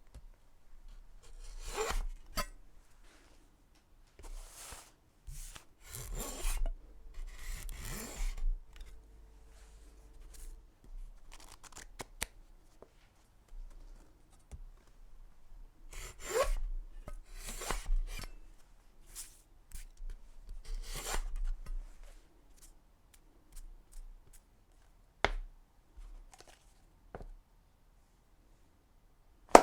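Knife blade making a series of separate rasping, scraping strokes, grouped with pauses between them, and a single sharp click later on.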